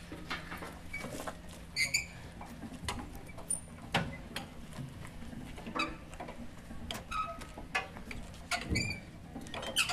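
Hand winch hauling a steam yacht's cradle up a slipway: irregular clicks and knocks about once a second, with a few short squeaks.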